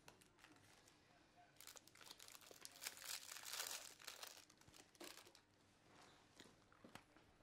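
Quiet paper crinkling and crumpling by hand, a dense rustle of small crackles from about a second and a half in until about five seconds in, loudest in the middle.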